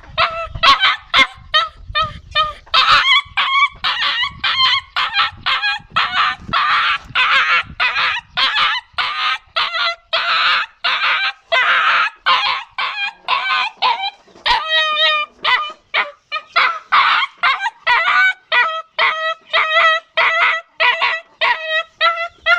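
A dog crying: a continuous run of short, high-pitched whining yelps, about two to three a second.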